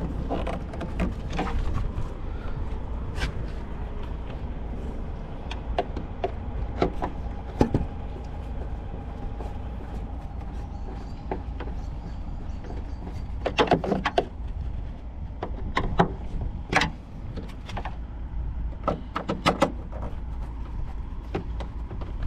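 Scattered sharp clicks and knocks of hand work refitting a lamp's plastic cover and screws after a bulb change, with a quick cluster of clicks about two-thirds of the way in. A steady low rumble runs underneath.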